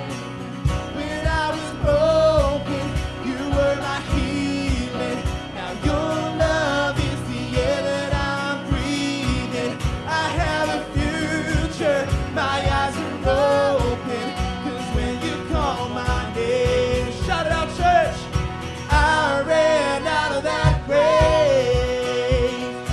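Church worship band playing a song with a steady drum beat and guitar, with a sung melody line over it.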